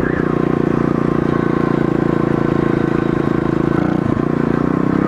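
Pit bike engine running steadily as the bike cruises, its note dipping briefly about four seconds in.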